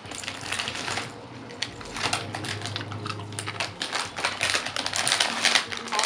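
Crinkling of a potato chip bag as a hand rummages in it, mixed with many small, quick clicks and taps.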